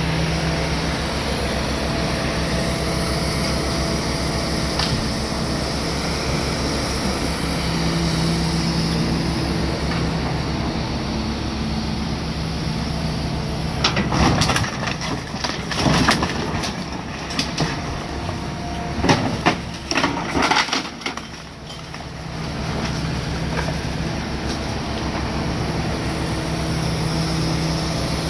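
Hitachi Zaxis 250LC-6 excavator's diesel engine running steadily. About halfway through comes a few seconds of loud, sharp clattering impacts as a bucket load drops into the end-dump trailer.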